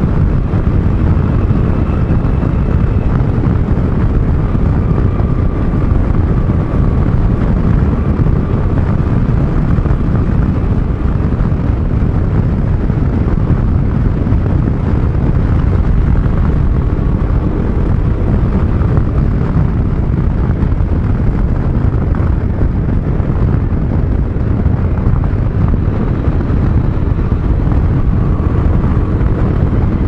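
Scooter ride: a steady, loud rumble of wind on the microphone mixed with the scooter's engine and road noise.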